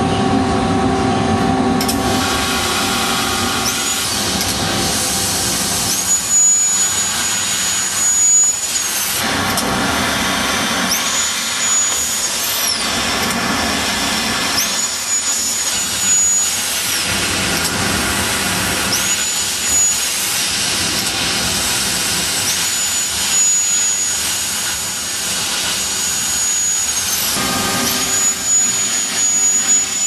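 Sheet-metal laser cutting machine at work: a steady loud rushing noise, with a high whine that rises in, holds for one to several seconds and falls away, repeating about eight times as the machine runs.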